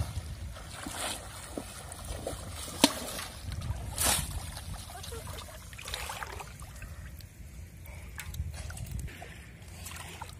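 Shallow water splashing and sloshing irregularly as polo fish traps are worked through it, with a sharp knock about three seconds in and a louder splash about a second later.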